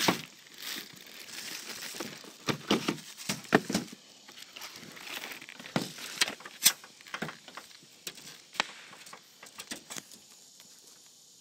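Handling noise from cardboard fireworks boxes and their plastic wrapping: a scattered series of short knocks, taps and crinkles as they are touched and moved.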